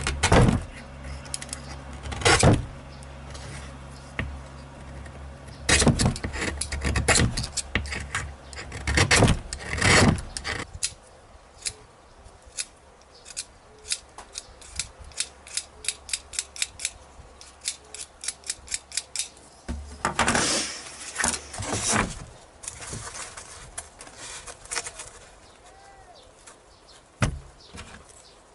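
Hand-work handling noise from repairing a foam radio-control model plane with bamboo skewers and a utility knife: scrapes and knocks, then a run of small sharp clicks, about three a second. A low hum under the first part stops about ten seconds in.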